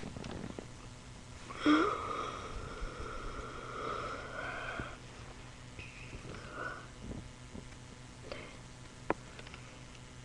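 A person's breathing with a cat hair tickling the nose: a high, wheezy drawn-out breath of about three seconds, starting sharply, then a shorter one and light sniffs. A small sharp click comes near the end.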